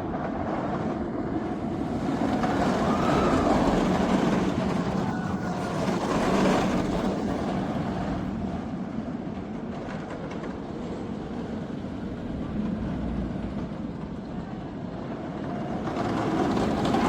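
Batman The Ride's inverted steel roller coaster train running along its track with a strange rattling noise that the rider questions as not normal. The rumble and rattle swell and fade as the train passes.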